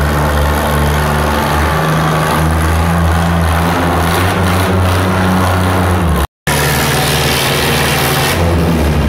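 Antique farm tractor engines running, one of them an Oliver pulling a weight-transfer sled, with a steady low engine note that shifts slightly in pitch. The sound breaks off for a moment about six seconds in, then the engines carry on.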